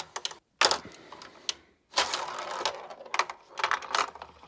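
The spring shooter of a 1976 Ideal Hit 'n Run plastic pinball baseball game cocked and fired, then the marble clattering through the plastic playfield. There is a series of sharp clicks and clacks, with a longer rattle starting about two seconds in.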